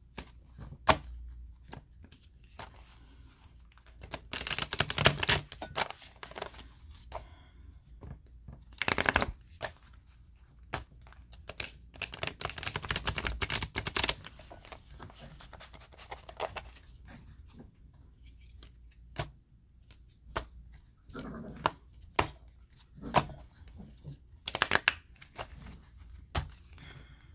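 Tarot and oracle cards being shuffled by hand: the riffled halves of a deck flick together in several bursts of a second or two, with lighter clicks of cards between.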